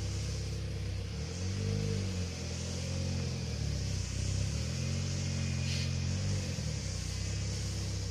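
Chevy Cavalier's engine running, revving up and settling back down twice.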